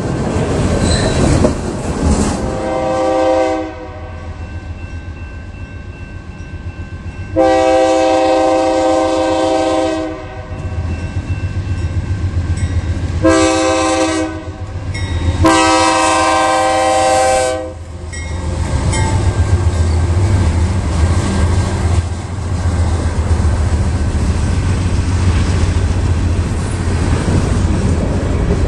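The lead BNSF GE C44-9W diesel locomotive's multi-tone air horn sounding the grade-crossing signal, long, long, short, long, starting about two and a half seconds in. After the last blast, the locomotives' diesel engines rumble past, followed by the steady clatter of freight-car wheels over the rail joints.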